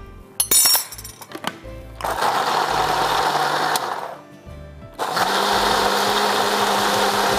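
Countertop blender pureeing canned sweetcorn kernels in their own liquid into creamed corn. After a few light knocks it runs for about two seconds, stops briefly, then runs steadily again, a motor hum under the churning of the kernels.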